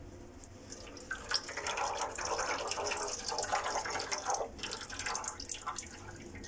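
Gear oil pouring and gurgling into a Ford Expedition's rear limited-slip differential as it is refilled for a second flush of water-contaminated oil. The pouring starts about a second in and tapers off after about five seconds.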